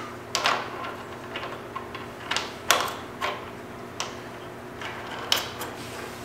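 Scattered clicks and clanks of metal tools and parts being handled on a steel welding table, about half a dozen sharp knocks spread over several seconds, as a cutting disc is swapped onto an angle grinder that is not running.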